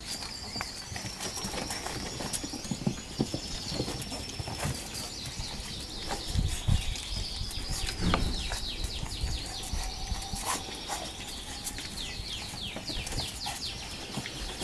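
Small birds chirping throughout, with many quick high falling calls, over scuffling and knocks from French bulldog puppies playing. There are a few louder low thumps around six to eight seconds in.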